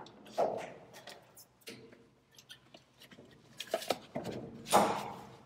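Scattered metal clicks, rustles and short scrapes of a PTO driveshaft yoke being handled and slid onto a tractor's 540 rpm PTO shaft, with a louder short rushing scrape near the end.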